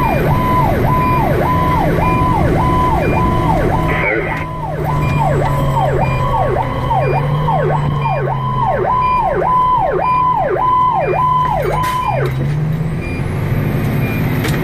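Fire engine's electronic siren heard from inside the cab, a fast repeating cycle that holds a high note and dips sharply about twice a second, over the truck's diesel engine drone. The siren cuts off about twelve seconds in, leaving the engine running.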